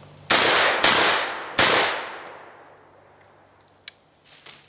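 Three shotgun shots fired in quick succession from a TriStar Viper G2 semi-automatic shotgun, about half a second to three quarters of a second apart, each trailing off in a long echo. A light click follows about four seconds in.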